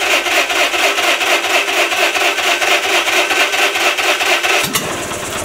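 Wisconsin THD two-cylinder air-cooled engine running fast and unloaded, a loud, rapid, even rasping beat: the engine is running away at high speed. Its note changes abruptly near the end.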